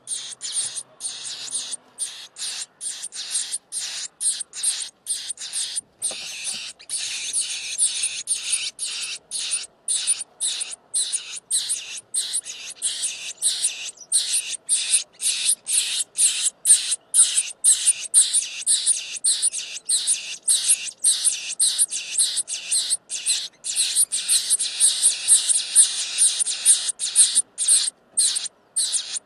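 Nestlings begging in the nest, a constant run of short, high-pitched screaming calls, about two or three a second, growing louder from about halfway in.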